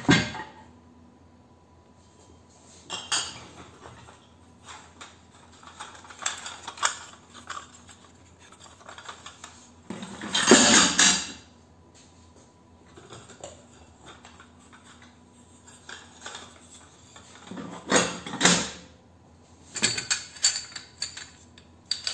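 Dismantled light-fixture parts clattering and clinking as they are dropped and shuffled into a plastic drum, with scattered light clicks between loud clatters about three and ten seconds in and again near the end.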